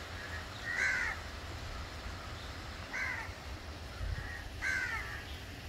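A crow cawing three times, harsh calls about two seconds apart, over a low steady rumble.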